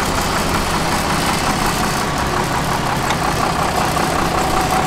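Engine of a Praga 6x6 trial truck running steadily at low revs as the truck crawls slowly over rough sandy ground.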